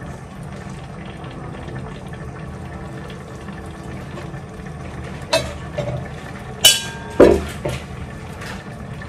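Coconut milk simmering in a stainless steel pan on a gas burner, a steady low bubbling. About five to seven seconds in, three sharp clinks of kitchenware cut through it, one of them ringing briefly.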